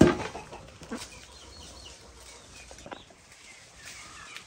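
A large metal basin knocks down onto hard dirt ground once at the very start, then faint clucking of chickens and bird chirps.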